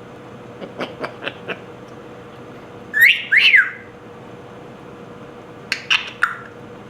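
African grey parrot whistling. A few soft clicks come first, then two loud swooping whistles about three seconds in, then a few short sharp calls near the end.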